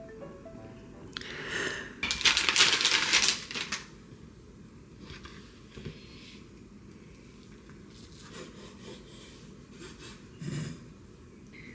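A knife slicing sheets of fish cake on a wooden cutting board: a string of soft taps and scrapes as the blade meets the board, with a firmer knock near the end. It is preceded by a louder crinkling, rustling noise of handling, about 1 to 4 seconds in.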